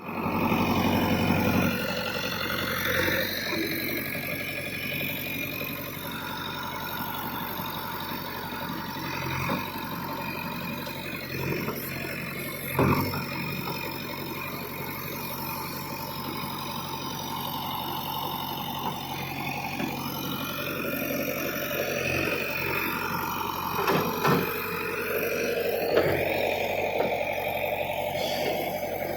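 JCB backhoe loader's diesel engine running steadily, its note shifting a little as it works, with a few short sharp knocks along the way.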